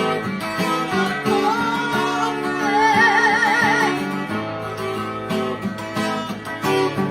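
Acoustic guitar music, with a wavering melody line over the guitar from about one second in to about four seconds in.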